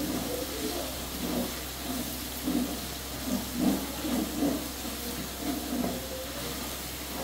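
Wooden spatula stirring a simmering mix of fried onions and liquid in a large aluminium pot, with soft irregular strokes about once or twice a second over a steady hiss of cooking.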